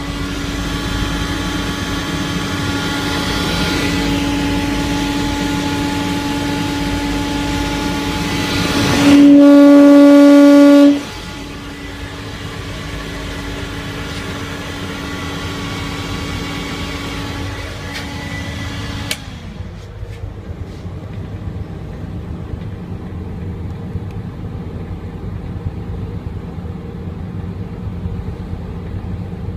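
Small 5-inch muffin-type exhaust fan running with a steady hum and airflow hiss, then cut off about two-thirds of the way in, leaving a low steady rumble underneath. About a third of the way in, a loud steady horn-like tone sounds for about two seconds.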